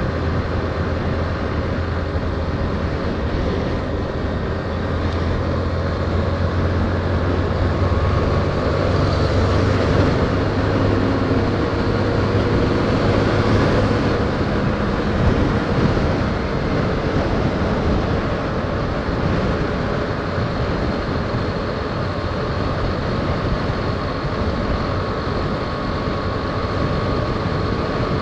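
Yamaha Fazer 150 motorcycle's single-cylinder four-stroke engine running at road speed, under loud wind noise on the microphone. A heavy low wind rumble eases about halfway through.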